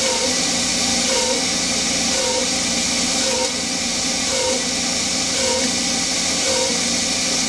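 Steady hiss of a Noga air mister blowing onto the cut while a Hercus PC200 CNC lathe turns 6061 aluminium. A lower tone in the machine noise swells briefly about once a second.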